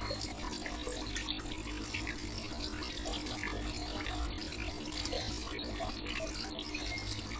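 Gas boiler flue terminal exhausting: a steady rushing hiss with a constant faint low hum and a few small crackles.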